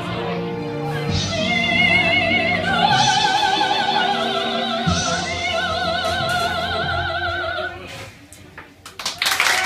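Female operatic voice singing long held high notes with wide vibrato over an accompaniment, ending in a final sustained note. About a second after the note ends, audience applause breaks out.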